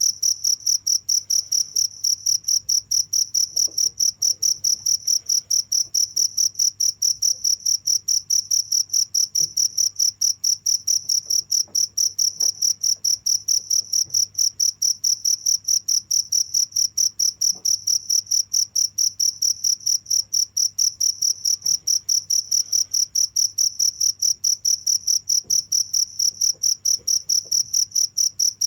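Cricket chirping continuously: a single pure high-pitched tone pulsed in an even, rapid rhythm of several chirps a second, never pausing.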